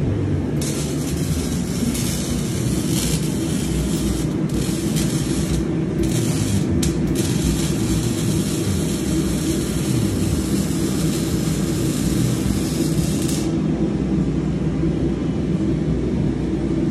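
Arc welding on the car's exhaust pipe: the arc's hiss and crackle comes in runs of a few seconds with short breaks, and stops about 13 seconds in, over a steady low shop rumble.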